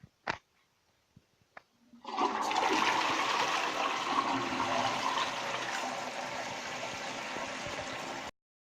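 A few faint clicks, then a toilet flushing: rushing water starts about two seconds in and runs for about six seconds before cutting off abruptly. It is the flush of a toilet whose fill valve and gasket have just been replaced.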